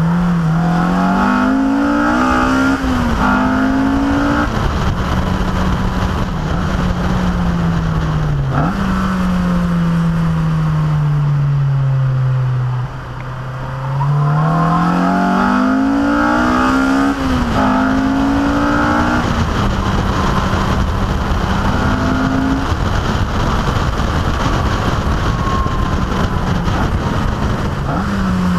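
A car's engine driven hard, heard onboard: revs climb and drop sharply at each upshift, hold steady, fall away about halfway through, then climb through the gears again. Steady wind and road noise run underneath.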